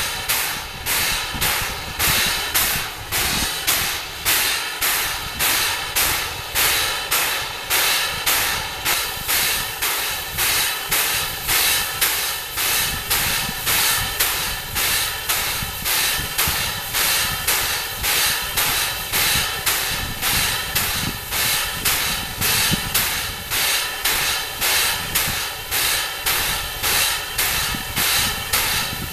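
Steam-driven locomotive air compressor from a Chicago & North Western R-1 steam locomotive running on steam, its exhaust chuffing in a steady, even rhythm with a hiss of escaping steam, as it pumps air into a locomotive air tank for its compressor test.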